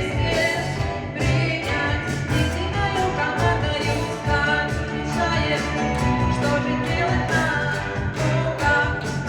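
A woman singing a song over backing music with a steady beat and bass line.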